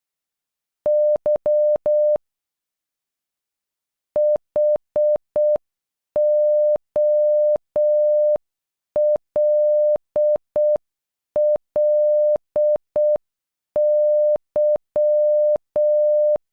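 Electronic Morse code beeps, one steady mid-pitched tone keyed on and off. First comes the letter Y (dash dot dash dash). After a pause of about two seconds, the word HOLLY (.... --- .-.. .-.. -.--) follows at half speed, with longer dots, dashes and gaps.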